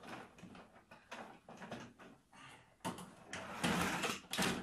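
Plastic parts of a Pilsan children's slide knocking, clicking and scraping as they are handled and refitted, with a louder stretch of scraping from about three seconds in.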